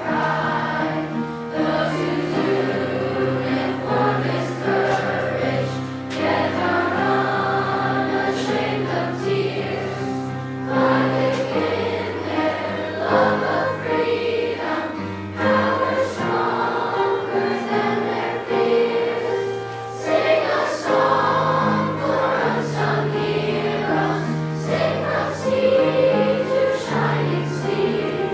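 Children's choir singing a slow piece with instrumental accompaniment, low sustained notes under the voices.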